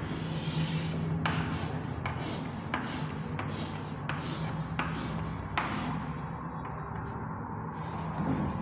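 Chalk scraping on a chalkboard as short lines are drawn: a run of quick strokes, about one every two-thirds of a second, followed by softer scraping.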